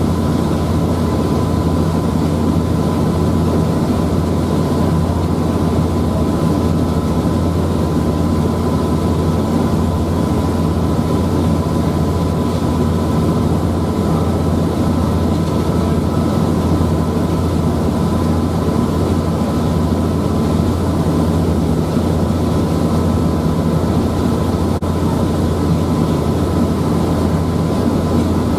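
The Queen Bouze passenger ferry's engines running steadily under way: a loud, even low drone with a faint high steady whine over it.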